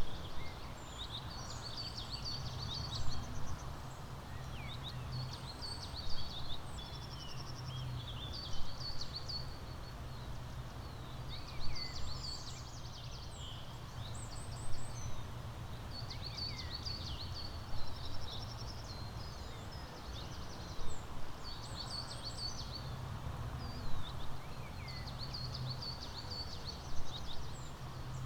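Songbirds chirping and singing, with short trills and a louder phrase repeating about every three seconds, over a steady low rumble.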